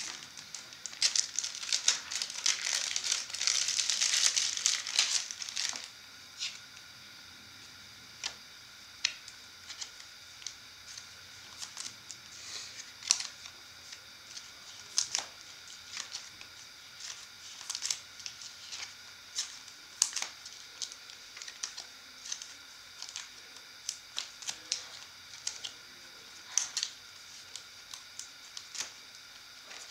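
Plastic crinkling for the first six seconds or so, then scattered sharp clicks and taps: trading cards being handled, sleeved and snapped into plastic card cases.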